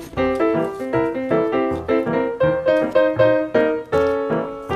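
Background piano music: a steady stream of struck notes, several a second, with chords under the melody.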